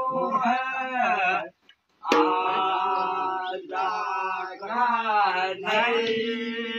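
A group of men singing a Kumaoni Holi song together in a chant-like chorus. The singing breaks off for about half a second a little after one and a half seconds in, then carries on.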